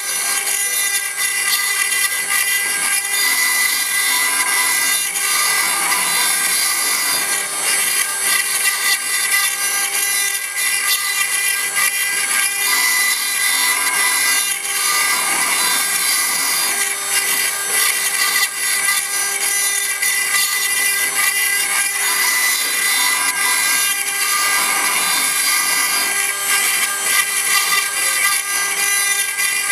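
4-axis CNC stone router's spindle running and cutting into stone, a steady high-pitched whine over continuous grinding noise that wavers a little as the tool moves.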